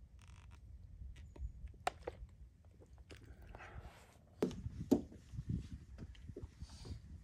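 Irregular footsteps with light clicks and knocks, and two louder thumps about four and a half and five seconds in.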